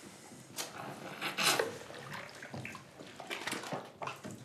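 Bathwater splashing and sloshing as people move about in a tub, in several short bursts, the loudest about a second and a half in.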